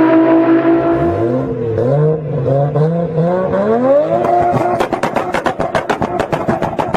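Nissan Skyline GT-R's RB-series twin-turbo straight-six holding a steady high note. About a second in, the pitch drops, then climbs in several short rising steps. Near the end the note turns into a rapid, regular stutter, about six pulses a second.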